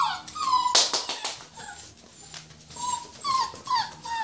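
Rhodesian Ridgeback puppies whining and yipping in a string of short, high, falling squeals while they play, with a burst of scuffling about a second in.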